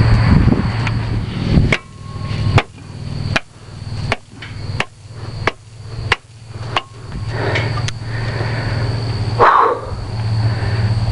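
Shovel packing down backfilled soil: about eight sharp strikes, roughly two-thirds of a second apart, over a steady low hum.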